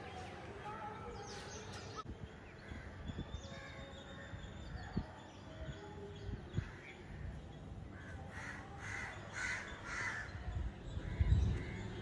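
Crows cawing: a run of about four harsh caws in quick succession, with other birds calling faintly. A low thump comes near the end.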